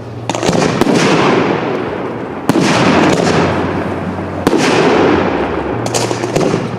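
Professional fireworks display: aerial shells bursting with about five sharp bangs, each followed by a loud noisy tail that dies away over a second or two.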